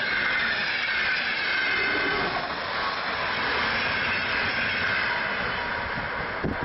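Passenger trains passing at speed on an electrified line: the rolling rush of steel wheels on rail as the last coaches of a locomotive-hauled express go by, followed by a ČD class 471 CityElefant double-deck electric unit, with a faint whine that sinks slightly in pitch.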